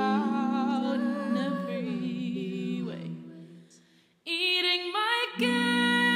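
Music: layered sung vocal harmonies holding long notes with vibrato, fading out about three seconds in. After a brief near-silence, new sustained vocal chords come in and swell.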